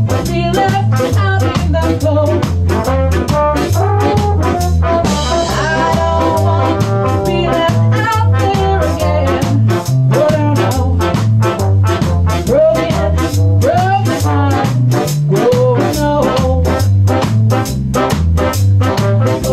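Ska band playing: a moving bass line under a steady chopping rhythm, with a melody line above it.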